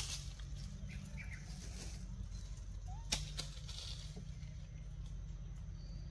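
Wind or handling rumble on the microphone, with fluttering rustle of dry forest leaves. A short pitched chirp comes about three seconds in, followed at once by a sharp click.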